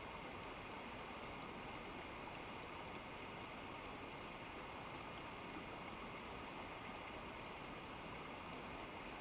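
Rushing water of a mountain river or waterfall, a steady, unbroken rush.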